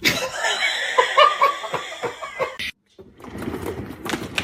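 A person laughing in quick repeated bursts, cut off abruptly, followed by a steady low background noise.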